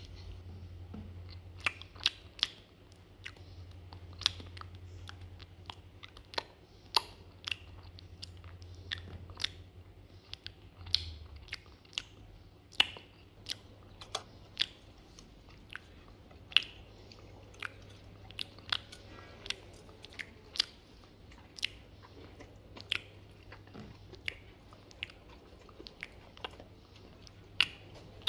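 A dog chewing and biting food, with irregular sharp, crunchy clicks about once or twice a second.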